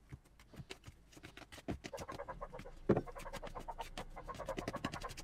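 A table knife clicking and scraping against a mixing bowl as water is stirred into flour, salt and yeast for bread dough. The clicks come quicker from about two seconds in, as a rapid run of strokes.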